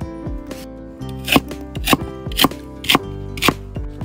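Knife chopping cabbage, five sharp strokes about half a second apart in the second half, over steady background music.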